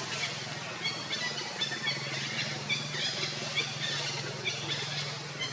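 Many short, high-pitched animal chirps, scattered and overlapping, over a steady low hum.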